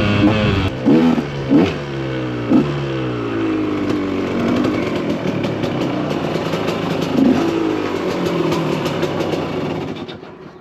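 KTM 125 EXC two-stroke single-cylinder engine revving in a few quick blips, then its pitch falling slowly as the bike slows, with sharp little pops over the engine. The sound fades away near the end.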